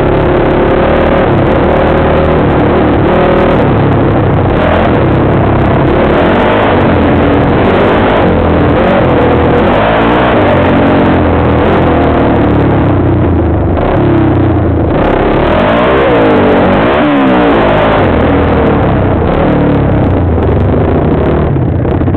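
ATV engine running loud close by as the quad rides a bumpy dirt trail. Its pitch rises and falls with the throttle, with quick rev swings about two-thirds of the way through.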